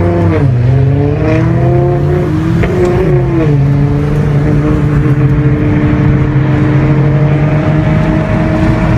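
Car engine pulling through the gears: its pitch climbs, drops sharply at an upshift about three seconds in, then holds nearly steady at cruising speed.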